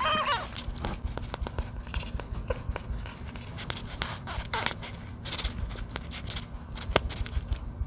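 A newborn kitten gives one short, thin mew right at the start. After it come soft handling noises: fingers rubbing and patting the kitten's fur on a towel, with small clicks and rustles.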